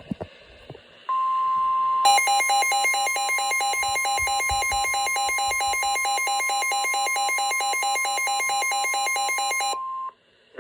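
Emergency alert tones announcing a severe thunderstorm warning. A steady single-pitch alert tone starts about a second in, and a harsh, rapidly pulsing two-pitch alarm joins it a second later. Both cut off shortly before the end.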